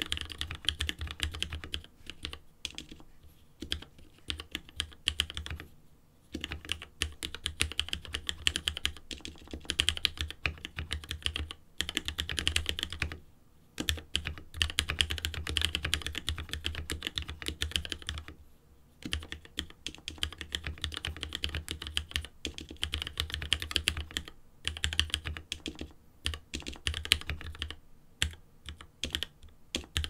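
Fast typing on a GamaKay (Womier) K66 mechanical keyboard with spray-lubed Gateron Red linear switches, set straight on the desk without a deskmat. Rapid runs of keystrokes with a low thud under each press, broken by several brief pauses.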